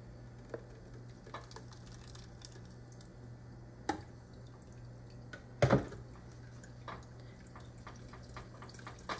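Thick blended tomato sauce pouring from a blender jar into a plastic strainer and dripping through into a pot, with a wooden pestle tapping and scraping in the strainer. A sharp knock a little past halfway is the loudest sound, over a low steady hum.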